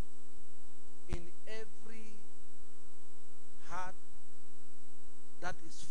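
Steady electrical mains hum with several fixed tones, broken a few times by short, wavering vocal cries.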